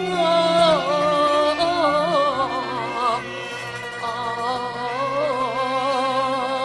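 Cantonese opera music: a single wavering melody line with strong vibrato runs over steady instrumental accompaniment.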